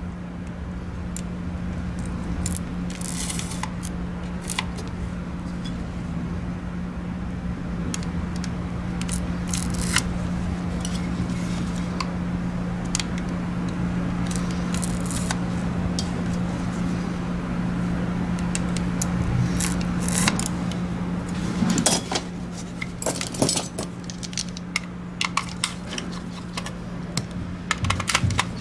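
Scattered small clicks, scratches and scrapes as a Logitech G Pro Wireless mouse's plastic shell is worked at with small tools and a screwdriver during disassembly, busier in the last third, over a steady low hum.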